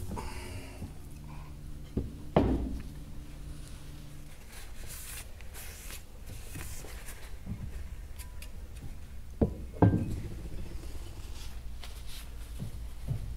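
Benchtop drill press motor humming steadily, stopping about four and a half seconds in, with a couple of sharp knocks around two seconds in as the aluminium cover is handled; two more knocks follow near ten seconds.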